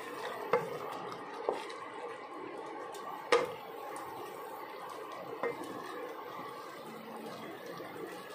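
A wooden spatula stirring vegetables through a thickening cornstarch sauce in a stainless steel pot: a wet, squishing stir over a steady simmer, with a few knocks of the spatula against the pot. The loudest knock comes about three seconds in.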